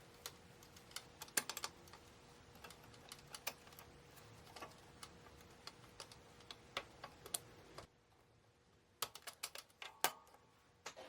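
Faint, irregular clicks and taps of small metal parts being handled as a pin is fitted to reconnect the drive rod of a recliner's mechanism linkage. The clicking stops for about a second about two-thirds through, then resumes.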